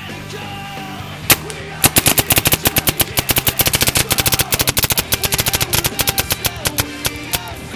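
Electronic paintball marker (a Diablo Wrath with a tournament board) firing on semi-automatic: a single shot about a second in, then a rapid string of about ten shots a second for some five seconds, stopping shortly before the end. Rock music plays underneath.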